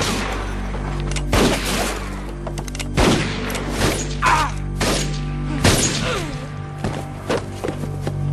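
Revolver gunfire in a staged gunfight: about a dozen shots at irregular spacing, some close together, over a steady low music score.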